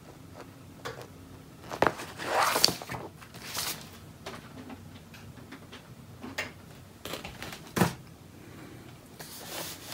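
Paper and cardboard handling: rustles and light knocks as a board game's rule book is moved and set aside over the open box of punchboards, with a sharper knock late on.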